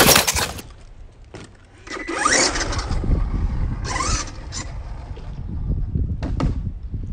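Electric RC monster truck motor whining up in short rising bursts as the truck pulls away, with its tyres scraping on the concrete and a steady low rumble of wind on the microphone.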